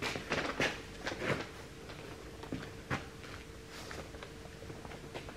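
Scattered light knocks and clicks of someone moving about and handling things in a workshop, several close together in the first second and a half and then sparse, over a faint steady hum.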